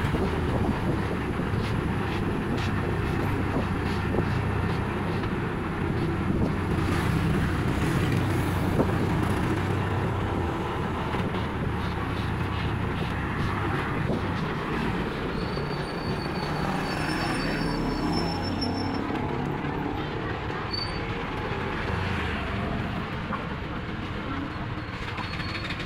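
Motorcycle tricycle's engine running steadily with road rumble, heard from the sidecar while riding over the road.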